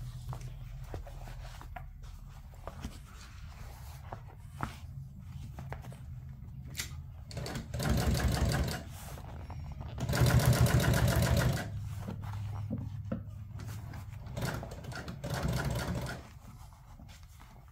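Industrial sewing machine top-stitching a vinyl car-seat panel in three short runs of rapid needle strokes. The middle run is the longest and loudest. Between runs there is a steady low hum and small clicks as the material is handled.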